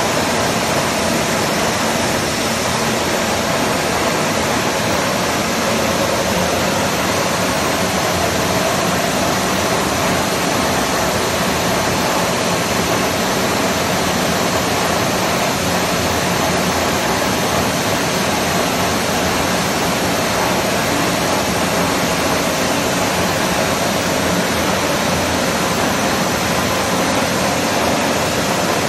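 Large bed-type milling machine with a universal swivel head running, giving a steady, even whirring noise that does not change.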